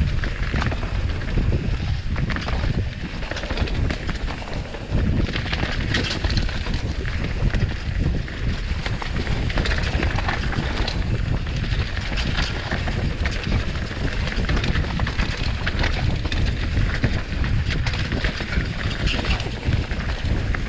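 Wind buffeting an action camera's microphone on a mountain bike riding downhill on a dirt trail, with a steady rush of tyres on dirt and leaves. Frequent quick clicks and knocks run through it as the bike clatters over bumps and roots.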